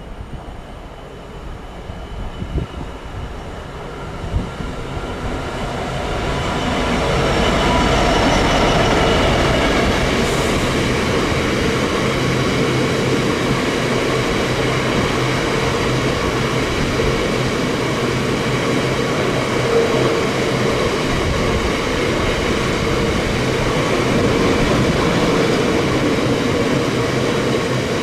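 Diesel-hauled freight train approaching and passing. Its sound builds over the first several seconds, then holds steady and loud as the train runs by, with a low engine tone and high steady ringing from the wheels.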